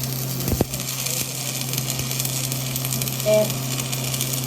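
Electric arc welding: a steady frying crackle over a low, even hum, with a single knock about half a second in.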